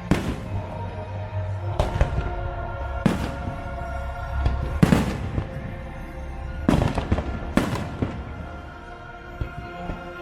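Fireworks bursting with about seven sharp bangs at irregular intervals of one to two seconds, over the fireworks show's music.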